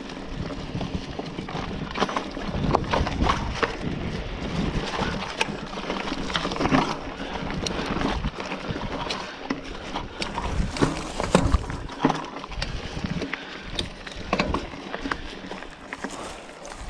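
Scott Spark 960 full-suspension mountain bike ridden over a dry, leaf-covered dirt singletrack: tyres crunching through leaves and over rocks, with irregular knocks and rattles of the bike over the bumps.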